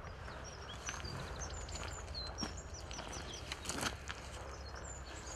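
Small birds chirping and twittering, many short high calls scattered throughout, over a low steady outdoor rumble, with a few faint knocks near the middle.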